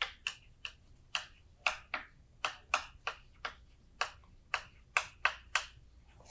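A series of short, sharp taps and strokes of a drawing tool on a board, about two to three a second at an uneven pace, as lines of a drawing are put down.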